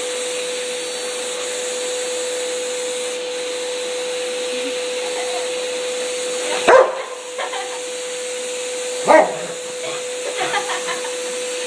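Vacuum cleaner running with a steady hum while a Rottweiler barks at it: two loud barks, the first about two-thirds of the way through and the second a couple of seconds later, followed by a few quieter sounds.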